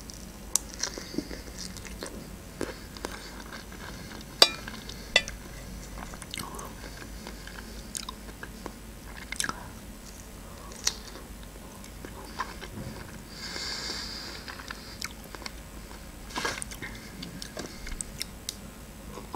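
Close-miked chewing and biting of chocolate-dipped strawberries. Wet mouth sounds come with short sharp lip smacks and clicks scattered irregularly throughout.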